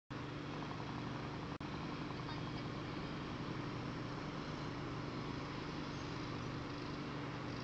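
Steady outdoor background noise: a constant low hum under an even hiss, with a momentary dropout about a second and a half in.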